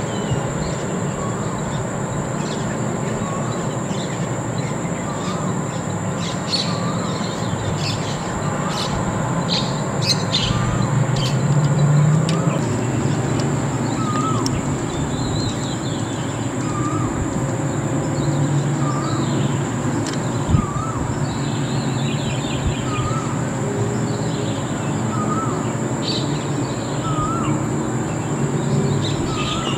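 Birds calling outdoors: one bird repeats a short hooked note about once a second, with scattered higher chirps, over a steady high-pitched drone and a low rumble.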